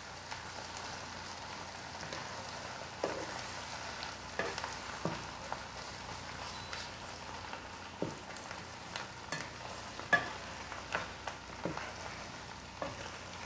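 A spatula stirring bulgur and lentil pilaf in a frying pan: irregular scrapes and taps against the pan over a faint steady sizzle.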